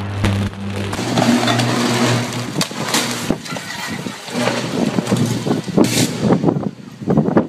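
Power lines arcing in a storm: a steady electrical buzz, crackling, and two sharp loud bangs about three and six seconds in, with wind noise and a burst of crackles near the end.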